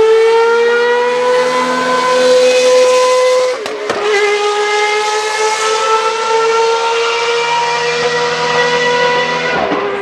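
1989 Ferrari 640 Formula One car's V12 at high revs under acceleration, its note climbing steadily. About four seconds in the note drops briefly on an upshift, then climbs again, and there is another shift near the end.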